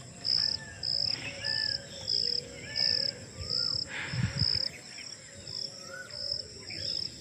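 Insects chirping in an even rhythm, a high chirp repeating about one and a half times a second over a constant thin high drone, with faint short bird calls underneath.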